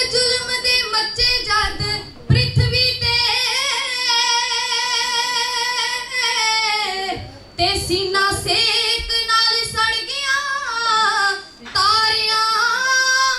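A group of three girls singing Punjabi kavishri into microphones, unaccompanied. The verse goes in long phrases of held, wavering notes, with short breaths between the phrases.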